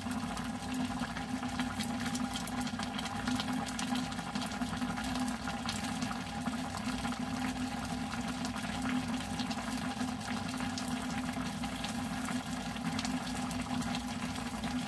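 Ramen broth with dumplings boiling in a glass saucepan: steady bubbling with many small pops, over a steady low hum.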